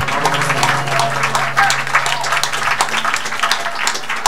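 Audience applauding, a dense stream of claps, with a few voices in the crowd.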